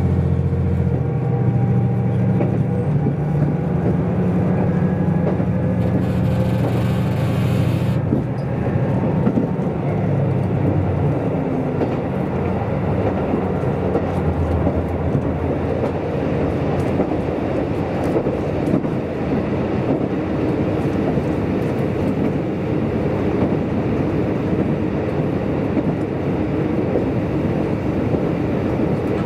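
Diesel express railcar heard from inside the cabin while under way: a steady low engine drone over the rumble of wheels on rail. About six seconds in there is a brief hiss lasting two seconds. After about ten seconds the engine note sinks into the even running rumble.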